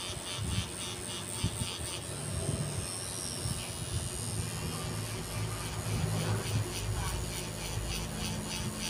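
Tattoo machine with a cartridge needle running in a steady electric buzz while it shades colour into skin.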